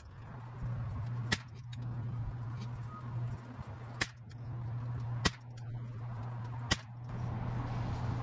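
Ruger 10/22 semi-automatic rifle firing four single .22LR shots, each a sharp crack, spaced about one to three seconds apart. A steady low hum runs underneath.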